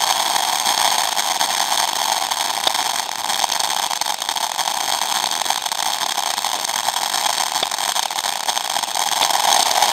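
Ground fountain firework spraying sparks with a steady hiss, with a few faint crackles.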